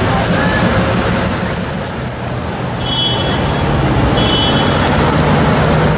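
Bugatti Veyron's quad-turbo W16 engine running as the car pulls away in traffic. After a brief dip about two seconds in, its note steps up in pitch as it drives off.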